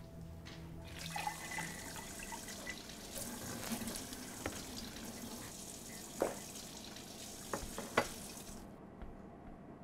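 Kitchen tap running water into a sink, a steady splashing hiss, with a few sharp knocks from items in the sink; the water shuts off near the end.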